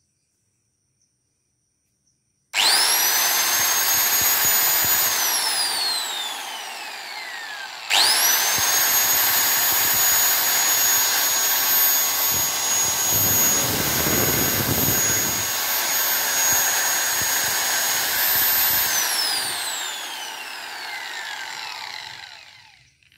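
Ryu RSG 100-3 4-inch angle grinder (580 W, 11,000 rpm) running with no disc fitted. It is switched on about two and a half seconds in, with a high whine that climbs at once to full speed, then switched off after a couple of seconds and drops in pitch as it coasts down. It is switched on again before it stops, runs steadily for about eleven seconds, then is switched off and winds down over several seconds.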